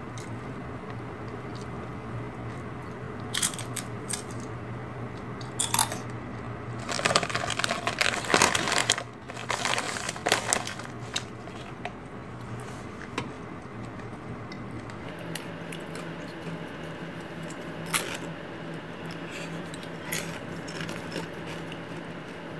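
Flamin' Hot Doritos tortilla chips being bitten and chewed close to the microphone: a few single crunches, then a dense run of loud crunching about seven to ten seconds in, fading to occasional crunches.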